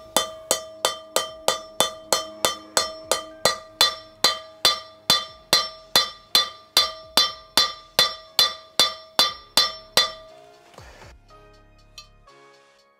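Hammer striking steel at a steady pace, about two and a half blows a second, driving a new interference-fit bearing cup (outer race) down into a caravan wheel hub drum through the old cup; each blow rings with a clear metallic tone. The hammering stops about ten seconds in, and faint background music follows.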